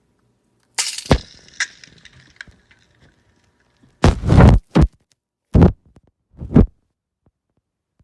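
Slime-filled stress ball being cut open and squished: a sharp crackly cut about a second in, then four wet squishes between about four and seven seconds in, the first the longest.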